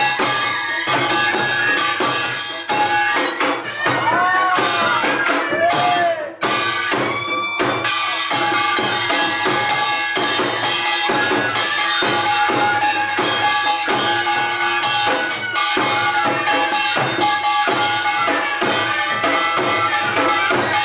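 Korean folk percussion music for the Jindo drum dance: a barrel drum (buk) struck with a stick in each hand in a dense, fast rhythm, with steady ringing tones held over the drumming and a few short sliding tones about four to six seconds in.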